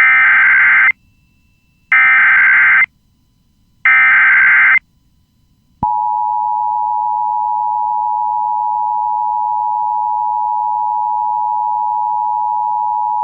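Emergency Alert System header: three identical bursts of warbling data tones, each about a second long and a second apart, encoding a civil emergency message. About six seconds in comes the EAS attention signal, a loud, steady two-tone alarm.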